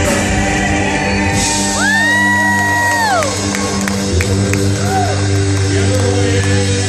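Southern gospel quartet singing live with a band: steady held chords, and about two seconds in a high vocal cry that slides up, holds for about a second, then falls away.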